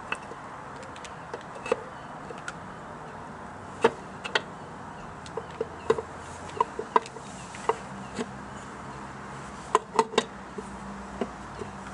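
Metal engine side casing of a Yamaha RS125 DX being worked onto the engine by hand: irregular light clicks and knocks of metal on metal, some in quick pairs, as it is seated over its new gasket.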